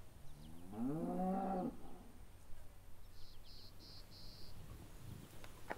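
A cow moos once, a call of about a second and a half that rises in pitch and then holds. A little later there are four short, high-pitched chirps in a row.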